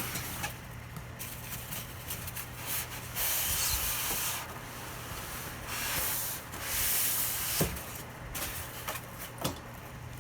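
Packaging being handled during an unboxing: rubbing and rustling, with two longer swishes and a couple of short knocks.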